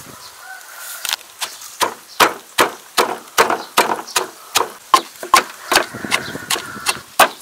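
Wooden pestle pounding chilies, garlic and salt in a wooden mortar: a steady rhythm of knocks, about two and a half a second, starting about a second in.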